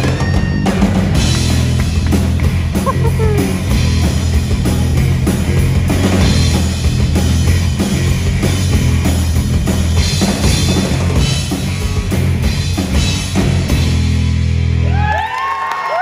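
Live rock band playing loudly, with drum kit and bass guitar driving the song, then stopping abruptly about fifteen seconds in. The crowd's whoops and cheers start right after the last note.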